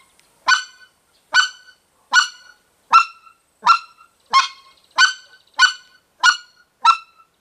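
Short-reed mouth-blown white-fronted goose call sounding about ten single, clean clucks, spaced a little under a second apart and coming slightly faster toward the end. This is the slow clucking drill, with the cupped hand over the call's end opening and closing to raise and lower the pitch.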